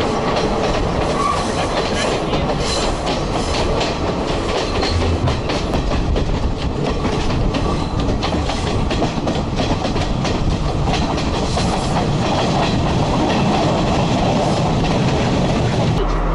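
Passenger train running along the track: a steady rumble with a rapid clickety-clack of wheels over the rail joints.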